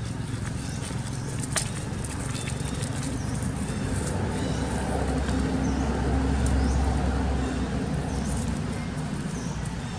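A motor vehicle's engine growing louder as it passes and then fading, loudest about six to seven seconds in.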